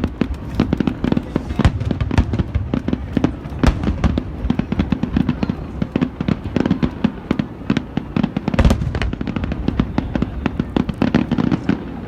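Fireworks finale barrage: many shells bursting in rapid succession, a continuous rattle of bangs and crackles over a low rumble, with a heavier cluster of booms about eight and a half seconds in.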